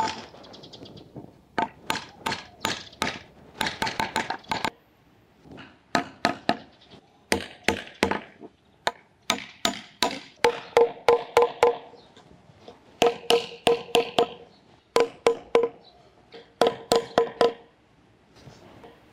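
A small metal-headed hammer driving curved wooden hook arms into mortises in a wooden post. The taps come in quick runs of three to eight with short pauses between, and each knock rings with a hollow wooden tone.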